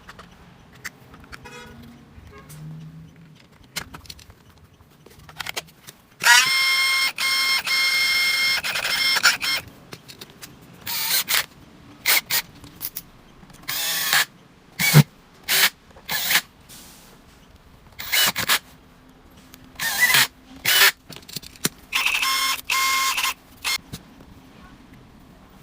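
Cordless brushless electric impact wrench test-run on its trigger: a steady high motor whine held for about three seconds, then a series of short trigger bursts, and another steady run near the end. The motor holds steady through each run without cutting out, with its cleaned trigger switch working again.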